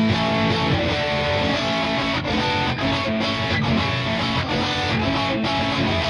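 Squier Bullet HSS electric guitar being played, a line of held single notes changing pitch every half second or so.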